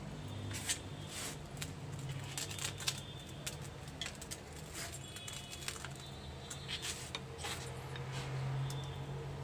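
A metal spatula scraping and clinking against an iron kadhai as grated carrots are stirred into hot milk, in short irregular strokes over a steady low hum.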